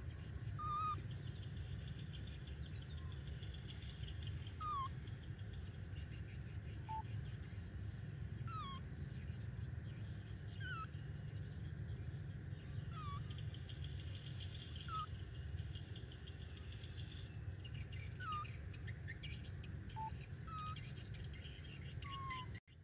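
Short whistled animal calls, each a single note mostly falling in pitch, repeat every two seconds or so. They sit over a steady low outdoor background and a faint high chirring.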